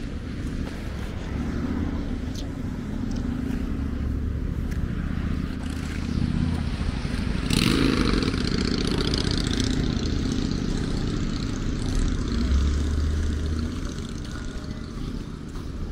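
Street traffic of motorbikes and cars passing with engines running, and a sudden louder rush about halfway through.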